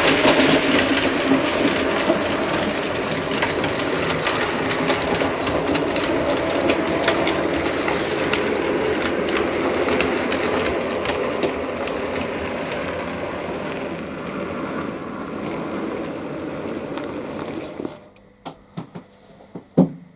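Model train running along the layout's track: a steady running rumble with wheels clicking over the rail joints. It eases off slowly and cuts off about 18 seconds in, followed by a few sharp clicks.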